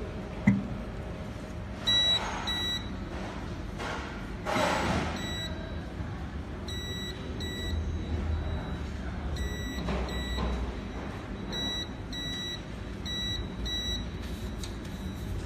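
3D printer touchscreen control panel beeping as its buttons are pressed: short, high electronic beeps in pairs, about five pairs. A sharp click comes about half a second in.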